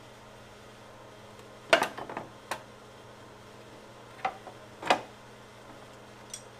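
Metal hand tools and engine parts clinking as they are handled and set down during an engine teardown: a quick cluster of clinks about two seconds in, then four single clinks spread over the rest. A steady low hum runs underneath.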